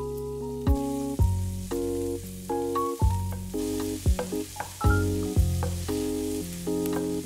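Food sizzling in a frying pan as diced vegetables are stirred with a wooden spatula, the sizzle growing stronger about halfway through. A background music tune of single notes plays over it.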